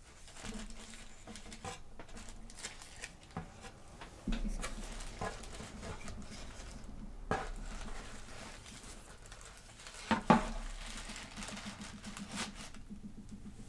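Hands rummaging through packaged items in an unboxing box: scattered light clicks and taps, with louder knocks about four, seven and ten seconds in.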